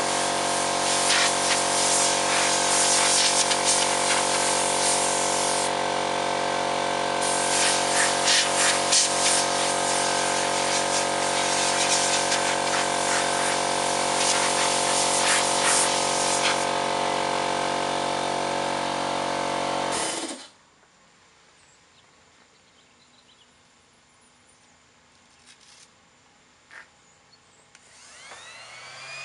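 Air blow gun hissing in bursts, blowing dust off the bodywork, over a steady running air compressor motor; both stop suddenly about two-thirds of the way through. Near the end an electric sander starts up with a rising whine.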